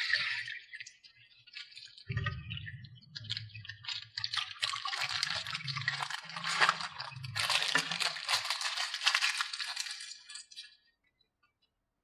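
Small hard plastic toys clattering and rattling against each other, a dense run of clicks and clinks with dull knocks, stopping short about eleven seconds in.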